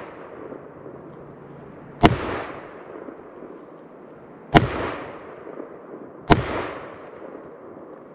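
Sig Sauer M400 AR-15 firing three single .223 shots, the second about two and a half seconds after the first and the third less than two seconds later, each trailing off in a short echo.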